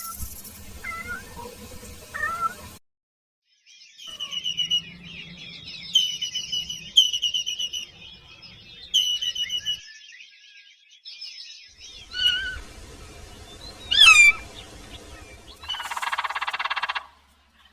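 Kitten meowing in repeated high, gliding calls across several short stretches, with quick high chirping notes among them. A short buzzy burst comes near the end.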